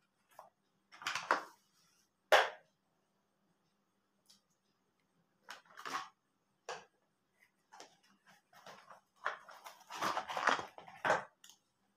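Cardboard box and hard plastic parts of a phone stand being handled and set down: scattered rustles and knocks, with one sharp knock about two seconds in and a busier stretch of handling near the end.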